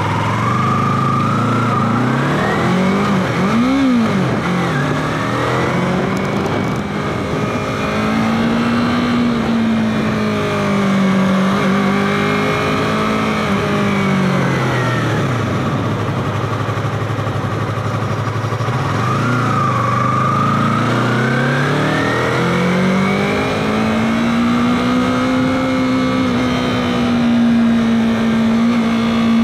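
Yamaha R3's 321 cc parallel-twin engine running under way, its note rising and falling every few seconds as the revs climb and drop through the weaving turns.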